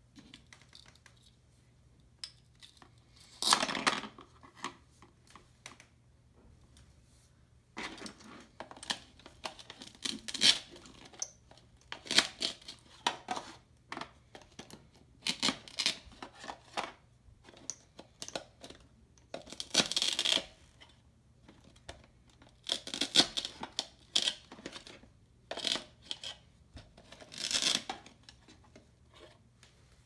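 Velcro ripping apart as the slices of a plastic toy pizza are cut with a toy knife: a dozen or so short rips, irregularly spaced, with light plastic clicks between them as the pieces are set down.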